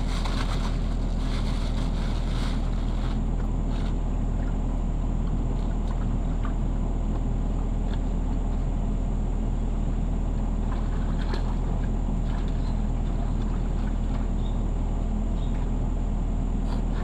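Mini excavator's diesel engine running steadily close by, a constant low drone, with a few faint clicks and knocks over it.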